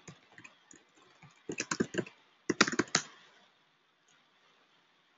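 Typing on a computer keyboard: a few scattered keystrokes, then two quick runs of keys about a second and a half and two and a half seconds in, entering a terminal command.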